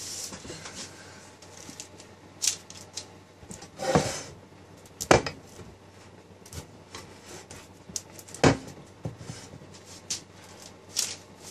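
A metal scraper blade working sticky oil out of a glass baking dish: soft scraping against the glass, broken by about half a dozen sharp clicks and knocks of the tool against the dish, a second or more apart.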